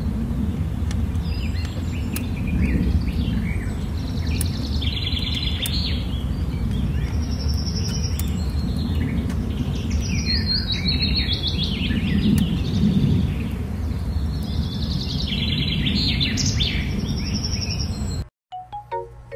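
Birds chirping and trilling in repeated short phrases over a steady low background rumble. A little over 18 seconds in, this cuts off abruptly and a bright plucked melody begins.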